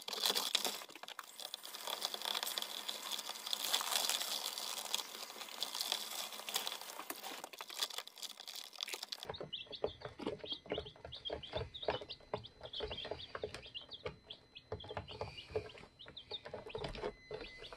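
Rustling and scraping for about the first nine seconds as a plastic feeder and waterer are handled and set down on the brooder floor, then baby chicks peeping with many small clicks of pecking at feed.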